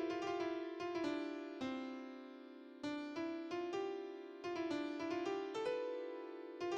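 Background music: a light melody of single notes, each struck sharply and then ringing and fading, with a couple of longer held notes.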